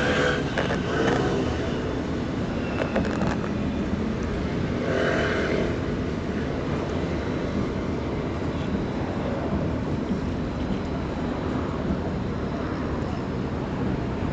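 Steady rumble of road traffic, with a louder passing sound swelling briefly about five seconds in.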